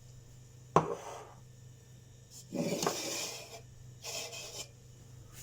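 Kitchen dishes and utensils being handled: a sharp clink of a dish or glass about a second in, then two stretches of scraping and rubbing against a bowl.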